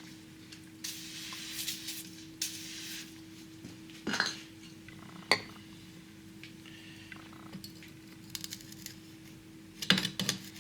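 Metal tools and engine parts clinking and clanking in scattered, sharp knocks, with the loudest cluster near the end, and a hiss lasting about two seconds near the start, during work fitting cylinder sleeves into a Ford 8N tractor block.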